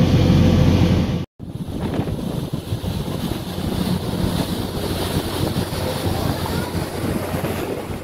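Car ferry's engines drone steadily as the wake churns at the stern. After an abrupt cut about a second in, wind buffets the microphone over the rush of the sea along the hull.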